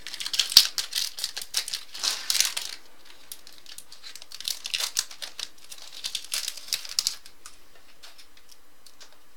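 Crinkling of a foil trading-card pack wrapper and the snap of cards being handled, in two spells of dense crisp clicks that stop about seven seconds in.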